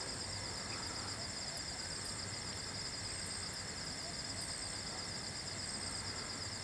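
Steady chorus of night insects, crickets among them: a continuous high pulsing trill with a higher chirp repeating about once a second.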